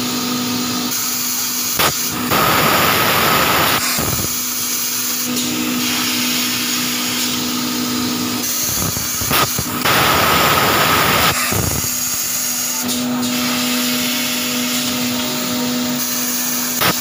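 Paper-pulp egg tray moulding machine running with a steady hum. Twice, about eight seconds apart, a sharp click is followed by a loud rushing hiss of air that lasts a second or two.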